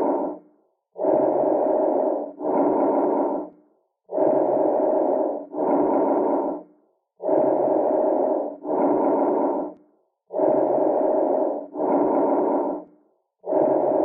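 Normal bronchovesicular breath sounds heard through a stethoscope: a medium-pitched rushing on each breath in and each breath out. The two phases are about equal in length, with a brief pause between them. About one breath cycle comes every three seconds.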